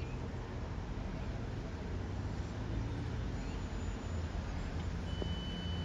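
Class 455 electric multiple unit moving slowly through the station with a steady low hum. A thin high tone comes in about five seconds in.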